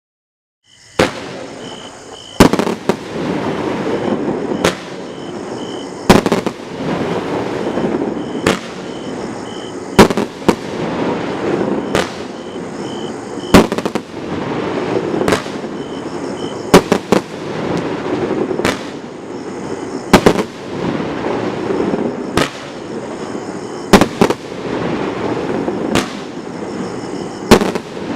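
Mega Willows firework from Evolution Fireworks firing shot after shot, starting about a second in. There is a sharp bang roughly every second and a half, with a steady hiss between the bangs.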